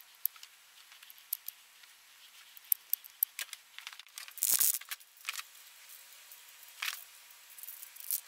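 Scattered small clicks and taps of things being handled, with one brief hiss about halfway through and a fainter one near the end.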